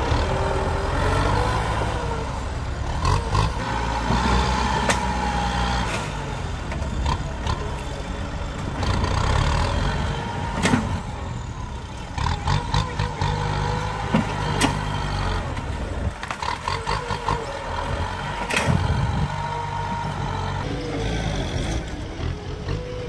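Diesel tractor engine working under load as it pushes an uprooted tree stump through soil, with a steady high whine over the engine and a few sharp knocks now and then.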